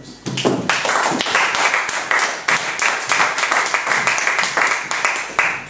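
Audience applauding, building up just after the start and stopping near the end.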